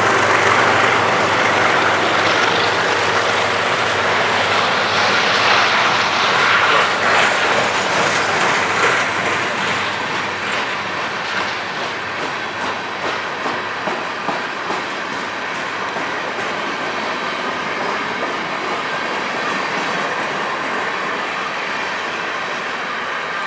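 Empty coal train's cars rolling past, steel wheels clacking over the rail joints, loudest in the first several seconds and then slightly quieter.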